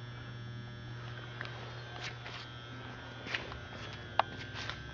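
Steady low electrical hum with a few faint scattered clicks and one sharper tick about four seconds in.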